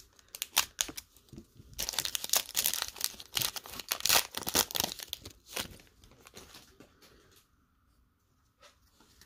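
Wrapper of a 2019 Panini Contenders football card pack crinkling and tearing as it is ripped open by hand, a dense crackle that builds after a second or two and dies away about seven seconds in. A few faint ticks follow near the end as the cards are handled.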